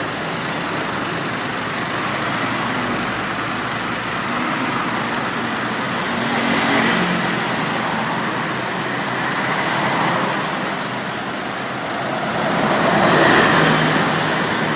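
Road traffic noise, with vehicles passing close by about seven, ten and thirteen seconds in.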